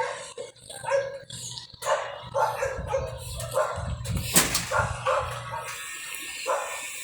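A dog barking repeatedly in short yips and barks, over a low steady hum that sets in about four seconds in as the washing machine begins its spin.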